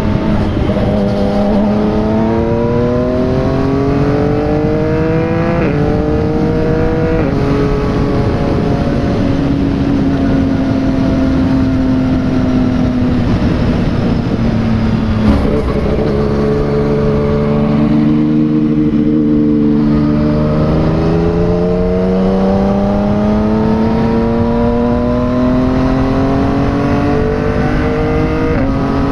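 Yamaha MT-09's three-cylinder engine through a replica Akrapovic aftermarket exhaust, heard from the rider's seat while riding: the pitch climbs under acceleration, drops back sharply at each upshift, holds steady through a cruising stretch in the middle, then climbs again toward the end.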